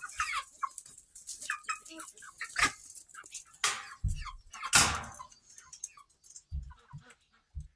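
Chickens clucking in short scattered calls, with a few sharp clicks, a rustle and dull thumps among them.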